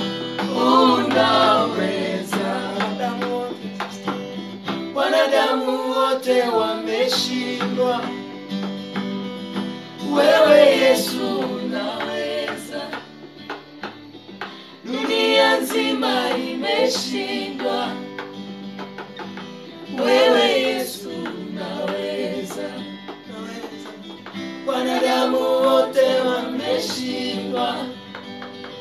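A small group of men and women singing a Swahili gospel song together, with an acoustic guitar accompanying them. The voices come in phrases about every five seconds, and the guitar carries on between them.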